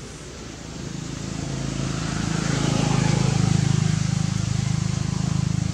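A motor vehicle's engine passing by: a low, rapidly pulsing drone that grows louder from about a second in, is loudest around three to four seconds in, then begins to fade.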